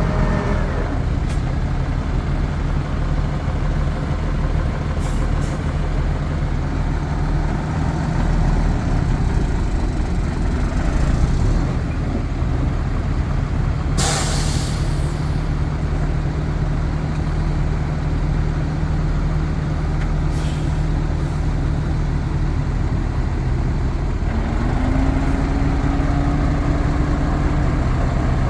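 Heavy diesel earthmoving machinery running steadily, with one short sharp hiss of a truck's air brakes about halfway through. Near the end the engine's pitch rises and holds higher.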